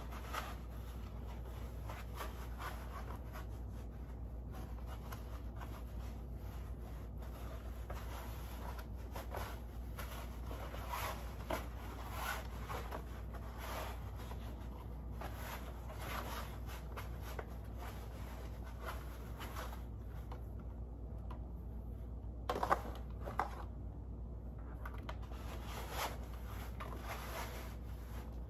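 Cloth rustling and scraping as a Halloween animatronic's jacket is handled and its arm pushed up into the sleeve, with a couple of sharper knocks about three-quarters of the way through, over a steady low hum.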